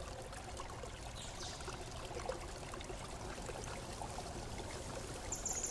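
Faint steady hiss-like background noise with a few soft ticks and a brief high thin tone near the end.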